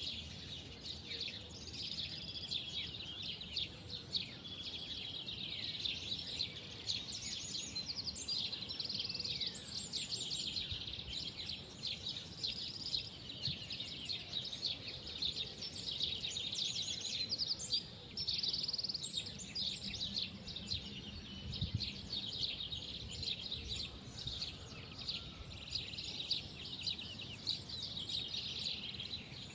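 Many small songbirds chirping and twittering, their short calls overlapping without pause, over a steady low background rumble.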